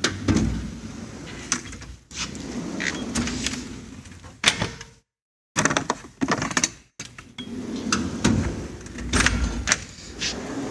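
Steel tool box drawers of a Snap-on Epiq being slid shut and pulled open on their slides, with a series of sharp knocks and metallic clicks from the drawers and the tools in them.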